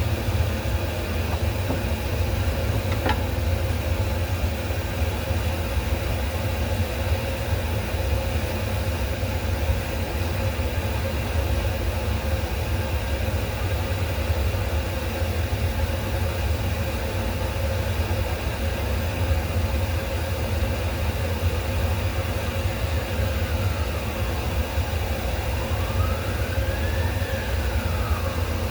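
Steady low machine hum with a constant mid-pitched tone, unchanging throughout. Near the end a faint tone slides down, rises and falls again.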